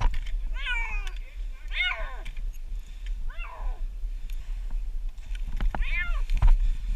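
Domestic cat meowing four times, spaced a second or more apart; each meow rises and then falls in pitch.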